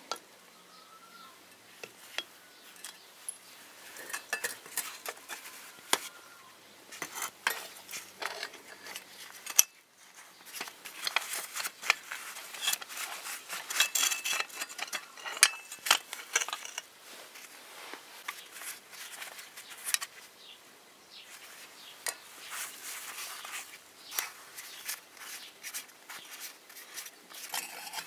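Irregular metal clinks and knocks as an old steel foot pump's cylinder, pivot pin and pedal frame are handled and taken apart by hand.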